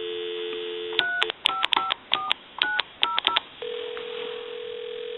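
Telephone dial tone that stops about a second in. Then about seven touch-tone (DTMF) digits are keyed in quick succession on the Mickey Mouse telephone's keypad. About three and a half seconds in, the ringback tone of the called line begins.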